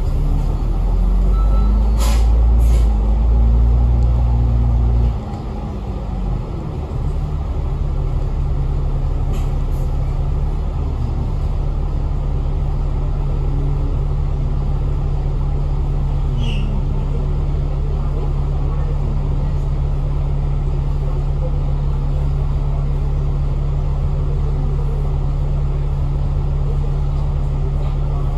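City bus engine pulling loudly for about five seconds, its pitch rising and then falling, with two short sharp sounds about two seconds in. It then drops back abruptly to a steady, even engine drone.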